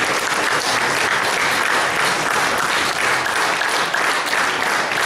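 Audience applauding steadily, a dense, even clapping that holds at one level.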